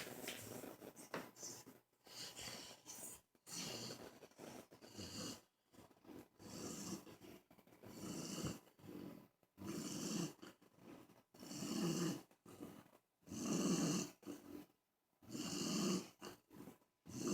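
A sleeping pet snoring, one rasping breath about every two seconds, the snores getting louder toward the end.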